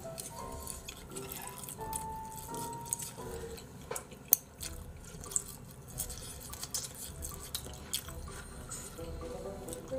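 Eating sounds: sharp clicks of chopsticks and utensils against the containers and bowls, with wet, liquid mouth sounds, over soft background music.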